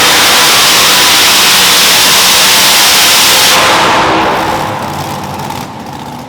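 Competition pulling vehicle's engine at full throttle under load, very loud and steady, then fading over the last couple of seconds.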